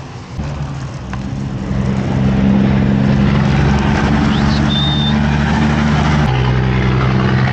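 A motor vehicle's engine running close by at a steady speed, getting louder about two seconds in, with its pitch dropping slightly about six seconds in.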